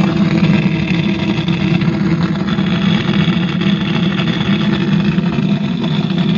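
Cemex 9898 tower home theatre speaker playing with a loud, steady, harsh rasping buzz ('khar khar'), a distortion fault that the technician traces to a damaged subwoofer.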